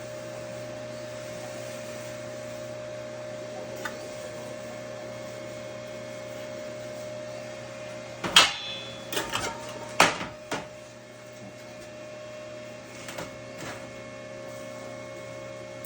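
Steady machine hum with a faint constant tone. About eight seconds in comes a cluster of sharp knocks, with more around ten seconds and two fainter ones a few seconds later.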